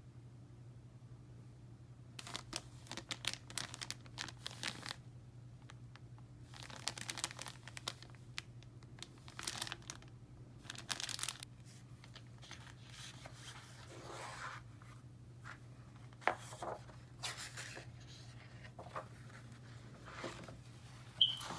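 Packaging being torn and crinkled by hand in several spells of rustling, over a steady low hum, with a sharp click near the end.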